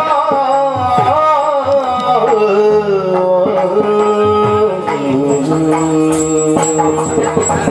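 Live Yakshagana music: the bhagavata sings a long, drawn-out melodic line over a steady drone, with maddale and chande drum strokes.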